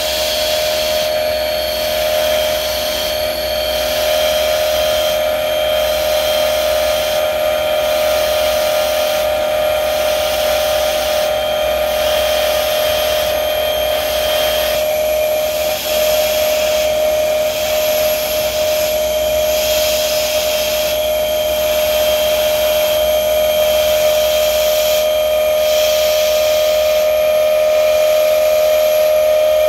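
APS RDR-1036 drill line spindle milling a circular hole in steel plate, the cutter travelling round the circle. A steady high cutting whine runs throughout, with a hiss that swells and dips about every two seconds.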